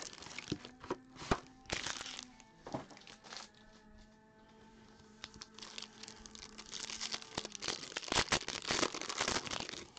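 Foil wrapper of a trading-card pack crinkling as it is handled, then torn open with a denser burst of crackling near the end. Faint background music with held notes sits underneath.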